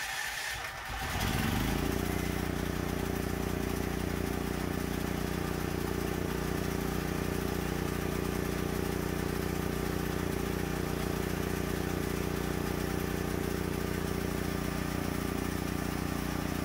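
DuroMax XP12000EH dual-fuel generator engine, running on propane, starting about a second in with a quick rise in pitch, then running steadily. The choke is still on, which can make it sound a little off.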